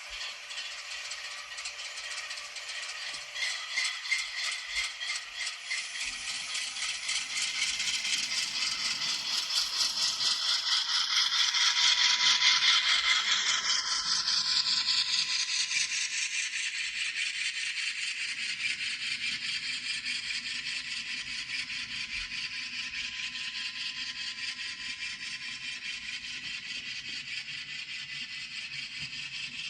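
N scale model train running on layout track: its wheels and cars rattle and click rapidly and evenly over the rails, with the locomotive's sound decoder switched off. It grows louder until about twelve seconds in, as the train comes closest, then fades as it moves away, with a faint steady motor whine in the second half.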